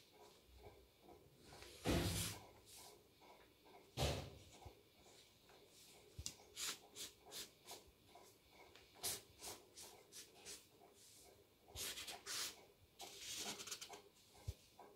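Black marker strokes on a sheet of paper as a face is drawn: a string of short strokes, some in quick runs. Two duller thumps come about 2 and 4 seconds in.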